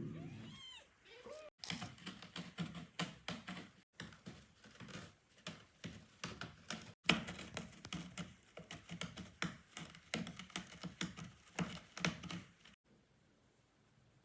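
A cat's short mews near the start, then a long run of rapid, irregular small clicks and taps, several a second.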